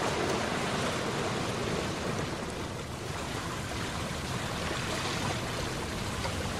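Boat ambience: steady rushing of water, as of waves washing along the hull, over a low rumble.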